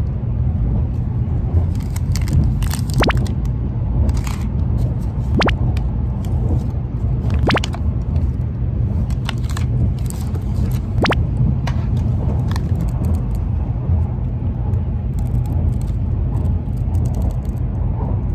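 Shinkansen cabin running noise, a steady low rumble, with scattered crackles and clicks of plastic food packaging and a juice carton being handled on the tray table.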